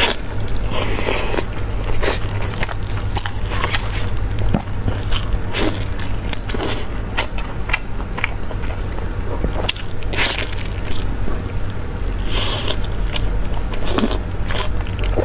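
Close-miked eating sounds of biting, tearing and chewing fatty braised meat off the bone: a dense run of wet clicks and smacks with a few louder tearing bites, over a steady low hum.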